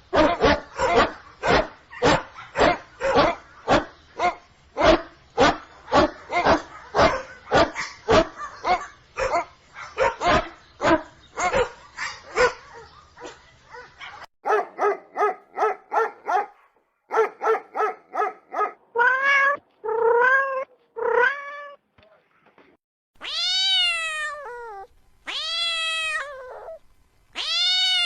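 A dog barking rapidly and steadily, about two barks a second, for roughly the first half. Then come runs of short pitched calls, and near the end a cat meowing three long meows that rise and fall in pitch.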